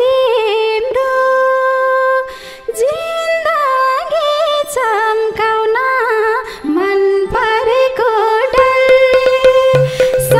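A woman's solo voice singing a Nepali dohori folk melody, with long held notes and ornamented turns. Near the end, percussion joins in with hand-drum beats.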